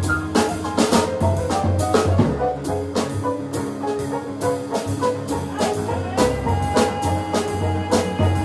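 Live small-group jazz: upright bass plucking low notes, piano, and a drum kit with cymbal and drum hits about twice a second, playing a swinging blues groove.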